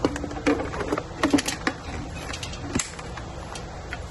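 A quick run of clicks and knocks from hands unplugging an e-bike's second battery and handling its connector, busiest in the first three seconds.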